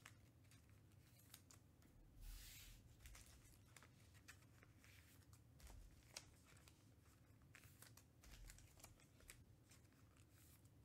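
Faint handling of trading cards: scattered light clicks and taps as cards are set down and picked up, with a short rustle about two seconds in.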